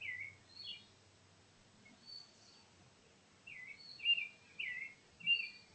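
Songbird chirping: short, high, falling notes in a few brief groups, with pauses between them.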